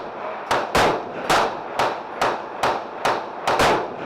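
Gunfire from several shooters on a range firing line: about ten sharp shots in four seconds at uneven spacing, some nearly overlapping, each with a short echo.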